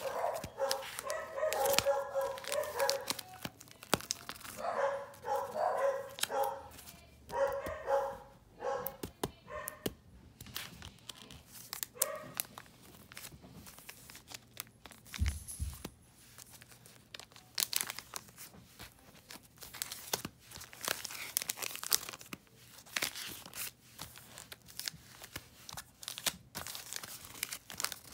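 Rustling and crinkling of a zippered DVD binder's sleeves as its pages are handled and turned, with many short clicks and scrapes. During the first nine seconds a pitched, wavering sound comes in short runs over the handling.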